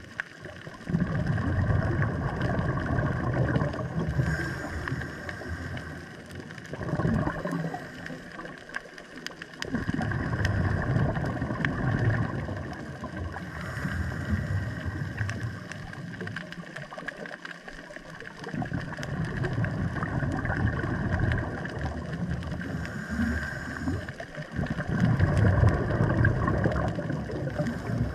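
Underwater sound of scuba diving: a diver's regulator exhausting bursts of bubbles every few seconds, with quieter gaps between breaths, over a steady underwater hum.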